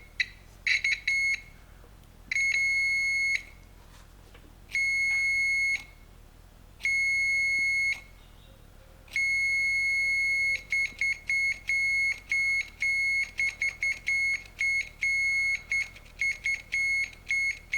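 Multimeter continuity beeper giving a steady high beep each time the door-jamb switch closes the circuit, keyed on and off by the plunger. It goes as a few short beeps, three long beeps of about a second each, another long one, then a rapid string of short beeps, tapped out like an SOS. The beeping shows that the switch is now making contact.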